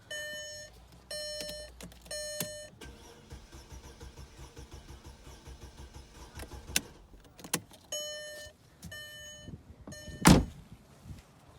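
The 2006 Mercedes ML350's 3.5 V6 cranking over on the starter with the fuel disabled, turning steadily for about five seconds without firing, as in a compression test on a healthy cylinder. Short repeated electronic beeps come before and after the cranking, and a loud thump comes near the end.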